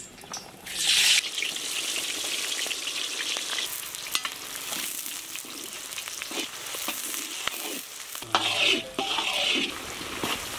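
Chopped red onions dropped into hot oil in a large iron wok hiss loudly as they land, about half a second in, then fry with a steady sizzle while a flat metal spatula scrapes and stirs them against the pan, with scattered clicks of metal on metal. About eight seconds in comes a second, louder stretch of sizzling and scraping.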